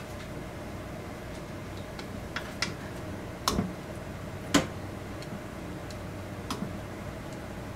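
Tongs and chopsticks clacking against an enamel plate and a frying pan as pieces of chicken are lifted out and set down: a handful of sharp clacks, the loudest about three and a half and four and a half seconds in, over a steady faint hum.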